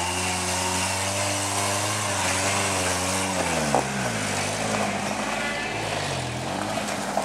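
1989 Ford Ranger 4x4's engine revving under load as it crawls up a steep rock slope, the revs rising and falling. Just before the middle there is a sharp knock, and the revs drop lower for the rest.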